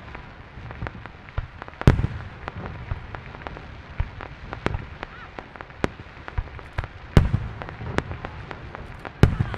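Fireworks show: aerial shells bursting, with loud booms about 2, 7 and 9 seconds in and many smaller pops and crackles between them.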